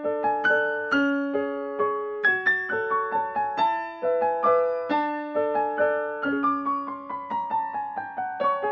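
Background piano music: a gentle melody of single struck notes that each fade away, about two or three a second, with a run of notes stepping down in pitch near the end.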